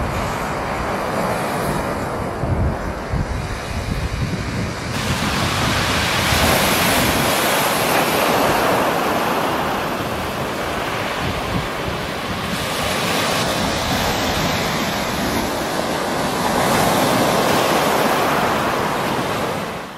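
Sea waves breaking and washing up a shingle beach, the surf rising and falling in surges, with wind buffeting the microphone.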